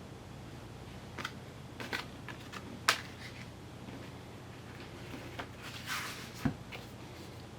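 Album packaging being handled during an unboxing: scattered sharp clicks and taps of card and plastic, a short paper rustle, and one low thump over a steady low hum.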